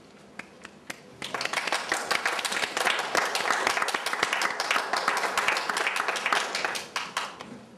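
Small audience applauding. A few scattered claps come first, then the applause fills in about a second in, runs steadily for around six seconds and dies away near the end.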